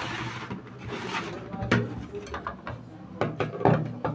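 A stand mixer's clear plastic splash guard and wire whisk being handled and set down on a countertop: a scatter of light plastic-and-metal clicks and knocks, bunched more closely near the end.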